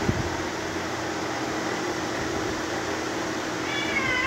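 Cats fighting: a brief thump right at the start, then near the end one cat gives a short yowl that falls slightly in pitch, over a steady background hiss.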